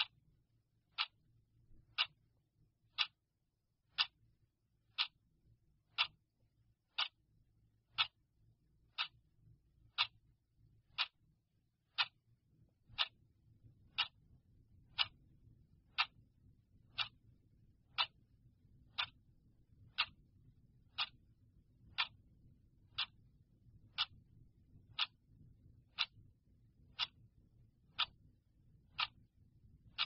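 Clock ticking steadily, one sharp tick each second.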